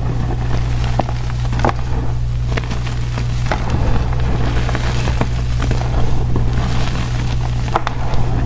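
Hands squeezing and crumbling blocks of powdery gym chalk, giving soft powdery crunching with irregular sharp crackles as clumps break apart. A steady low hum runs underneath.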